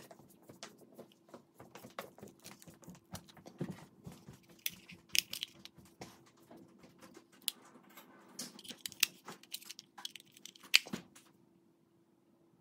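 Hands handling a small plastic digital radon detector: scattered clicks, taps and light rustles, with a faint steady hum underneath. The handling noises stop about a second before the end.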